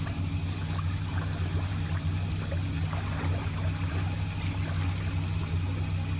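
Floodwater sloshing and trickling as a person wades knee-deep in it, over the steady hum of an idling car engine.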